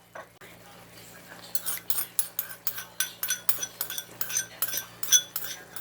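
Metal utensil clinking quickly and repeatedly against a dish, about five clinks a second, starting about a second and a half in.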